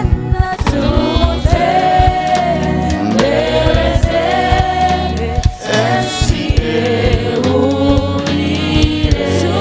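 Live gospel praise song: several voices singing together over a keyboard-led band with bass and a steady drum beat.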